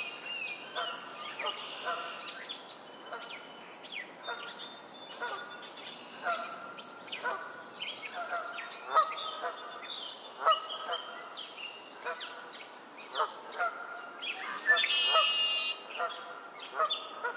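Canada geese honking again and again, a call every second or so. Near the end a songbird sings one loud buzzy song about a second long over the honking.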